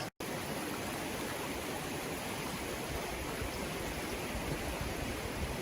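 Steady rushing of flowing water, an even unbroken wash of noise. It drops out for a split second just after the start.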